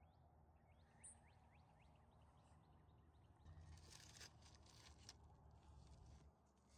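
Near silence, with a few faint clicks and rustles, a little busier past the middle.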